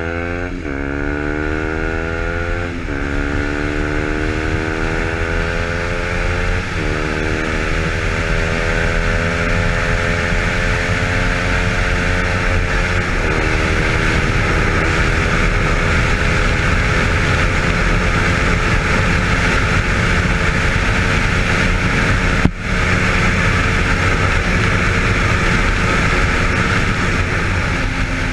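KTM Duke 125's single-cylinder four-stroke engine through an Arrow exhaust, pulled hard at full throttle on a top-speed run. Its note climbs and drops back with four upshifts in the first half, then holds in top gear, rising only slowly. Heavy wind rush on the microphone runs under it, and there is a split-second gap in the sound about three-quarters through.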